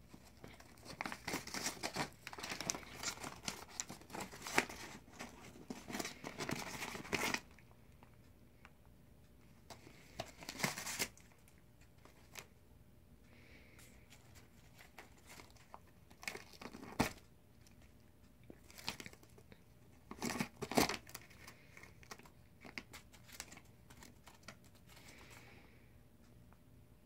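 A cat tearing and crumpling a paper envelope with its teeth and claws: paper rips and crinkles. The sound comes in a long busy spell over the first seven seconds, then in shorter bursts with quiet gaps between.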